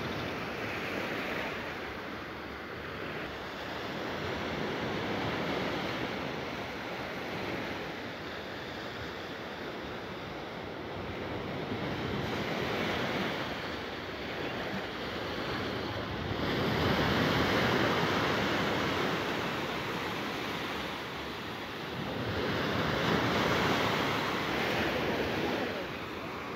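Small sea waves breaking and washing up onto a sand beach, a steady wash that swells and fades every few seconds.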